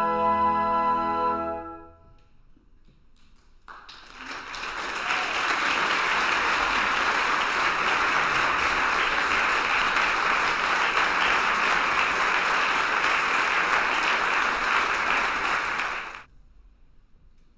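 A flute orchestra's final held chord dies away about two seconds in. After a brief lull the audience applauds steadily for about twelve seconds, then the applause cuts off suddenly.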